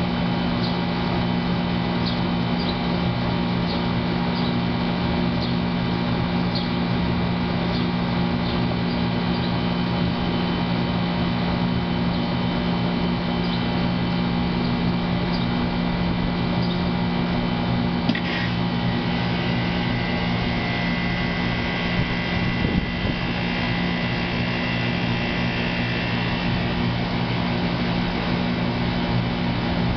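Outdoor central air conditioner condensing unit running with a steady mechanical hum and fan noise. About eighteen seconds in there is a click, followed by a higher steady whine for several seconds.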